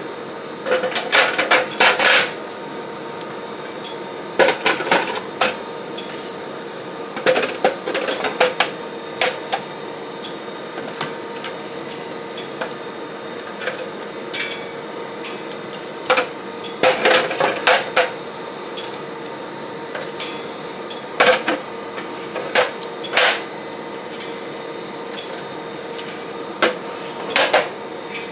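Hard knocks and clacks of batteries and parts being handled and set down during battery pack work. They come in short clusters every few seconds over a steady faint hum.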